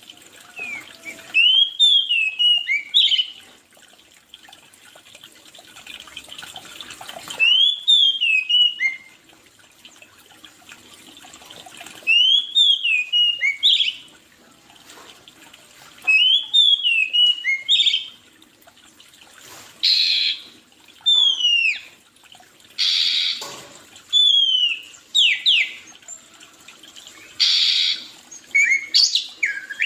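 A songbird singing, repeating short phrases of quick rising whistled notes about every four seconds, with a few brief harsher hissing notes in the second half.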